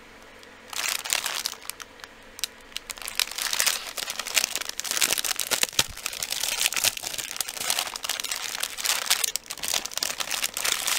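Clear plastic packaging bag crinkling and rustling as hands handle and pull at it, starting about a second in, with many small crackles.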